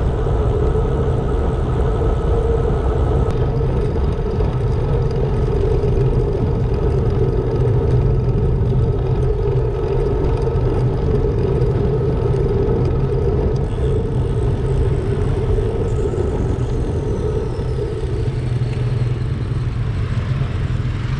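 Steady wind rush and tyre roar while a road bike rolls along wet tarmac, picked up by an action camera mounted on the bike.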